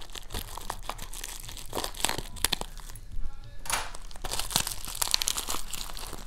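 Bubble wrap and packing tape crinkling and tearing as a parcel is unwrapped by hand: a dense run of irregular crackles, with a brief lull about three seconds in.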